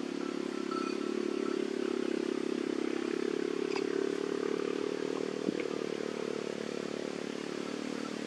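An unseen motor engine running steadily at an even pitch, with one short knock about five and a half seconds in.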